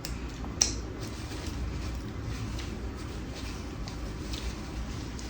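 Quiet chewing and mouth sounds of someone eating fast food, with faint small clicks over a steady low hum and one sharp click about half a second in.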